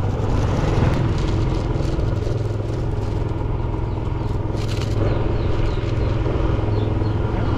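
Motorbike engine running steadily while riding along a road, a constant low hum under a haze of road noise.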